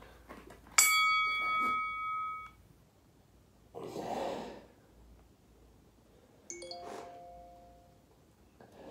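Two electronic chimes: a bright ding about a second in that rings for about a second and a half, and a second, lower-pitched chime near the end. They are typical of a workout interval timer signalling the start of a work period. Between them comes a short breathy rush of noise.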